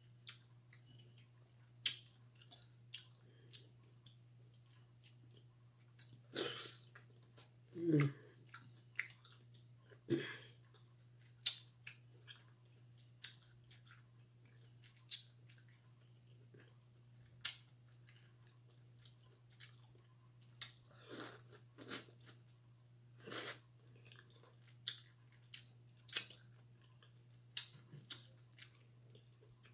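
Close-miked eating sounds: chewing, lip smacks and small irregular clicks as boiled shrimp and mussels are picked apart by hand from their shells, with a finger being sucked clean near the end.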